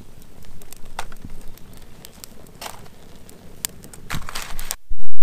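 Small campfire of twigs and paper crackling, with irregular snaps and rustles as sticks are laid on by hand. Near the end a sudden, very loud low rumble cuts in.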